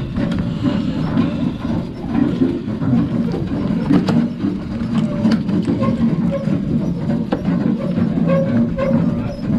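Steady low rumble on a fishing boat's deck, with a few sharp clicks and knocks as a fish is unhooked with a dehooking tool on the bait board.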